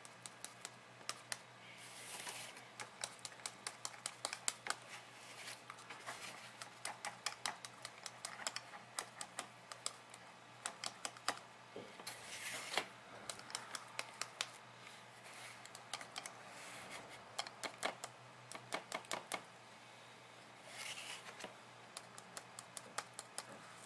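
Potting mix with perlite being poured and shaken from a plastic cup into a plastic seedling box: many quick, irregular ticks of grains and the cup against the plastic, with three short pours of trickling soil, the biggest about halfway through.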